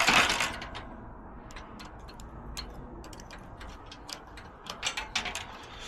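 Tool working inside an Adams Rite lock body: a brief scrape at the start, then a run of light, irregular clicks and taps.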